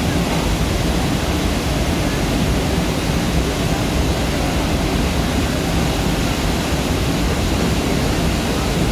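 Large waterfall: the steady, loud rush of a heavy cascade of falling water, unbroken throughout.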